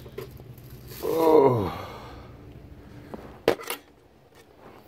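A man's short low groan falling in pitch about a second in, with a rustle of plastic wrapping, then two sharp knocks close together about three and a half seconds in as things are moved around by hand.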